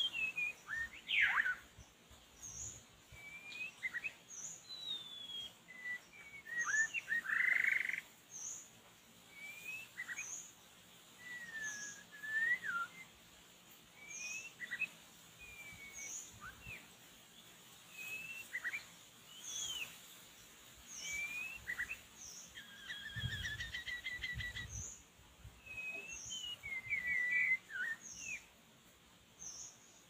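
White-rumped shama singing a run of varied whistled notes and slurs. A short high note repeats about every second and a half, and a quick trill comes about three-quarters of the way through.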